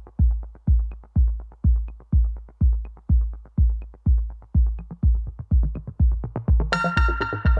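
Electronic dance music: a deep, steady kick drum at about two beats a second with light ticks between beats, and a bright synth melody coming in near the end.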